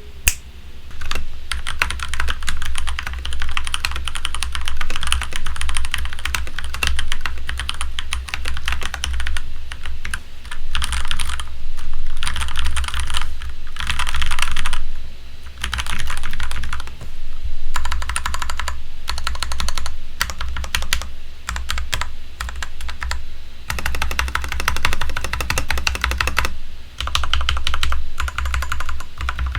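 Keychron K10 full-size mechanical keyboard with an aluminium frame being typed on: a fast, continuous clatter of keystrokes, broken by a few short pauses.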